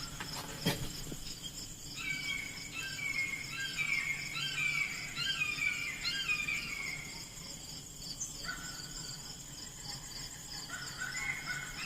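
Outdoor summer ambience: insects trilling steadily at a high pitch, with a bird singing repeated chirping phrases through much of it. A single click sounds about a second in.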